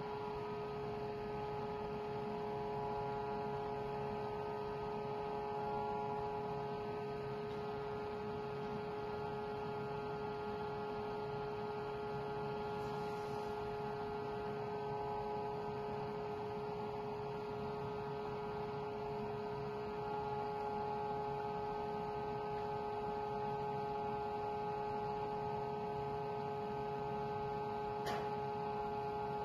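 A steady hum made of several held tones, one clearly strongest, with a higher tone growing louder about two-thirds of the way through.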